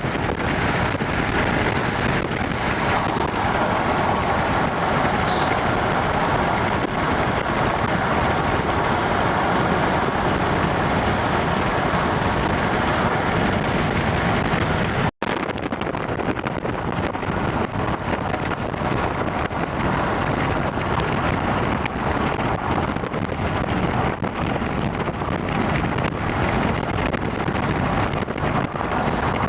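Steady rushing noise of wind on the microphone, broken once by a brief dropout about halfway through.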